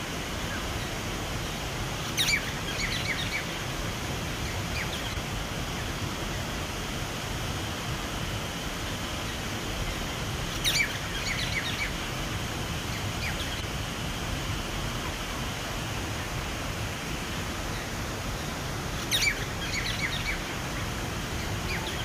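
Water running steadily over a small cascade into a garden pond, with a bird calling three times, each call a quick burst of high chirps, about eight seconds apart.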